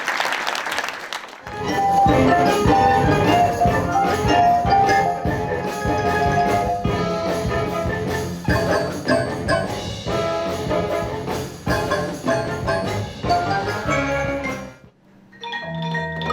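Band music with brass and mallet percussion such as marimba and glockenspiel over steady drum strokes, after a brief noisy wash at the start. The music stops abruptly near the end and a new section with a low bass figure begins.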